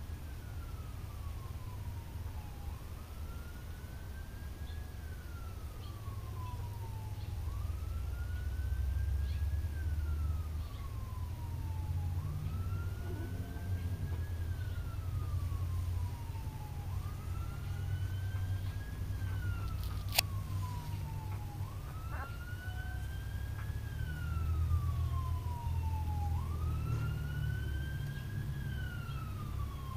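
An emergency vehicle's siren wailing in slow cycles, each one rising and then falling in pitch, about every five seconds. A low rumble runs under it, and there is a single sharp click about two-thirds of the way through.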